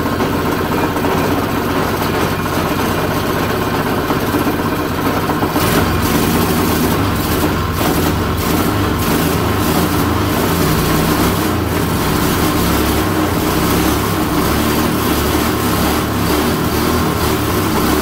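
LCT Storm Force 179cc single-cylinder engine running with the choke on. About six seconds in its sound grows deeper and a little louder, then stays steady.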